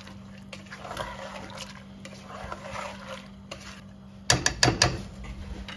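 A spatula stirring lentils, chicken pieces and water in an aluminium pressure cooker: a soft, wet sloshing and scraping. A little over four seconds in comes a quick series of sharp knocks of the spatula against the metal pot.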